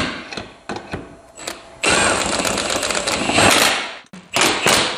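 Cordless impact wrench running the lug nuts onto a Yamaha Big Bear ATV's front wheel: one continuous run of about two seconds with a fast rattling hammer action, then two short bursts near the end as the nuts snug down.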